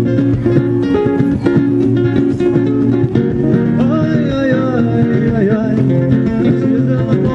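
Flamenco-style acoustic guitar music with plucked chords. A wavering melody line enters about four seconds in.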